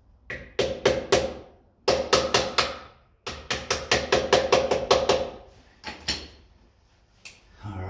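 Hammer tapping a tight-fitting 3D-printed ABS socket onto a motorcycle's rear axle nut: three quick runs of sharp taps, about five a second, the last and longest lasting nearly two seconds, then two single taps.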